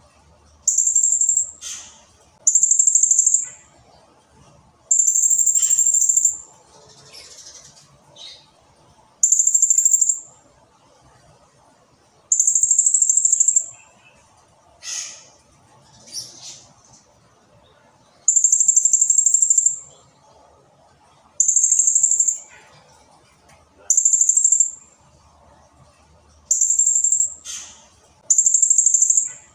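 Blue-crowned hanging parrot (serindit) calling: a run of very high, shrill bursts about a second long, repeated every couple of seconds. A few sharp falling whistles come between them.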